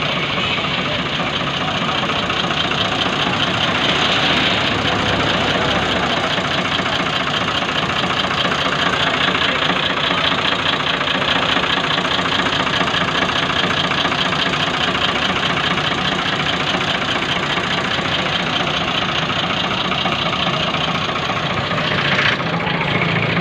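1983 Ford 4610 tractor's three-cylinder diesel engine idling steadily.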